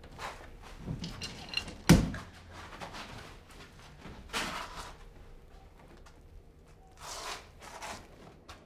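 A sharp, loud thud about two seconds in, with several shorter rustling or scraping sounds before and after it.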